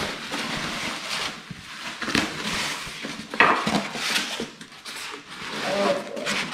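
Packaging rustling, with light clinks and knocks as the metal parts of a flat-packed garment rack are unpacked and handled.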